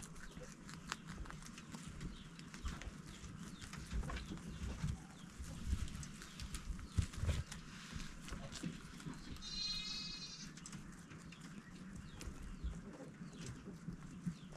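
A single pitched farm-animal call lasting about a second, roughly ten seconds in, over a low rumble and scattered clicks.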